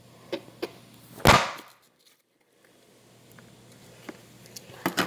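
A knife chopping an apple slice in half: two light taps, then one loud chop just over a second in, and a few more light taps near the end.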